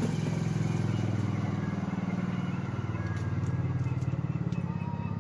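Steady low motor hum, with a few faint clicks.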